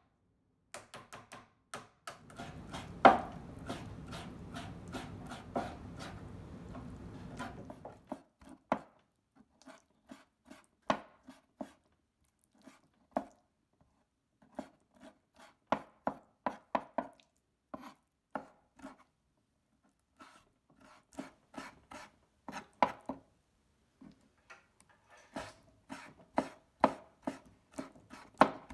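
Knife chopping raw liver finely on a cutting board: many quick, irregular strikes, denser at the start and near the end and sparser in between. A steady background noise runs under the first few seconds of strikes.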